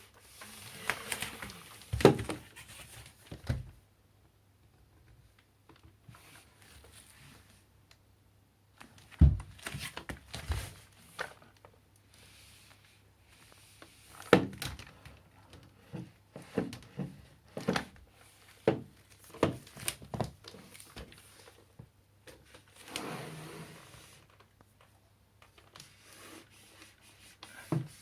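Handling noises: a series of sharp knocks and clicks with bouts of rustling, from parts of a cordless stick vacuum and its accessories or packaging being handled. The vacuum's motor is not running.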